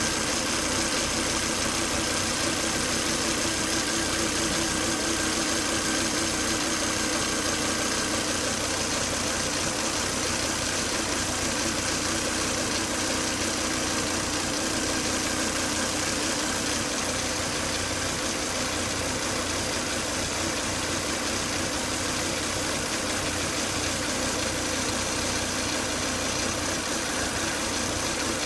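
Volvo S80 2.5T turbocharged five-cylinder engine idling steadily, with a thin, steady high whine over the running. This whine comes with high crankcase vacuum, a fault the owner cured by replacing the crankcase breather box.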